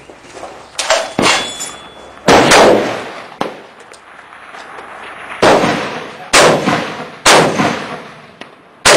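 20-gauge shotgun shots mixed with the bangs of 14.5 mm artillery simulators exploding on impact downrange. About seven sharp, loud reports come at irregular intervals, each dying away over about a second.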